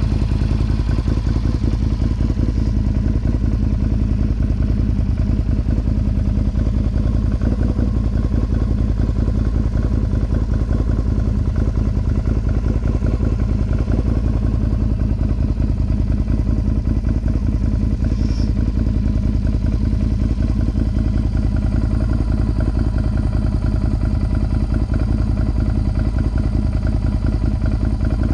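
Can-Am Outlander XMR 1000's V-twin engine running steadily through an aftermarket Yoshimura exhaust, holding one even engine speed without revving.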